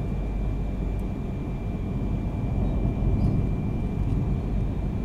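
Inside the passenger cabin of a Yamagata Shinkansen Tsubasa train under way: a steady low rumble of wheels and running gear, with a thin steady high tone over it.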